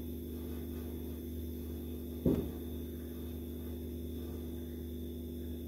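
Steady low electrical hum of room tone, broken once about two seconds in by a short, low sound.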